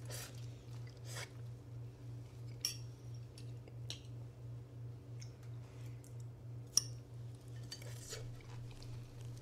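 A fork clinking against a plate a few times while someone eats noodles, with short sharp clicks spaced a second or more apart. A low hum pulsing about three times a second sits under it throughout.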